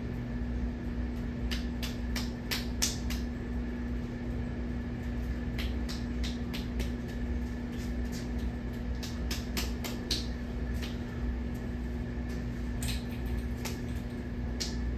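Hampton Bay Huntington III ceiling fan running on high speed: a steady motor hum, with scattered light clicks throughout.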